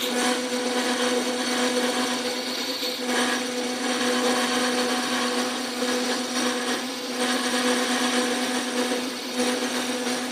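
Montgomery Ward Logan metal lathe running with a steady motor hum while a cutoff tool cuts back the teeth of a spinning steel gear. The cutting noise swells and eases unevenly.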